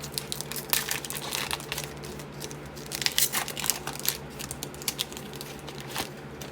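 Trading-card pack wrapper crinkling and tearing as the pack is opened by hand, in irregular crackly bursts, loudest about a second in and again around three seconds in.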